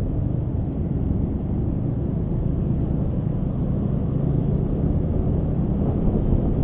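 Honda Scoopy scooter being ridden: a steady low rumble of engine and road noise mixed with wind on the microphone, growing a little louder near the end.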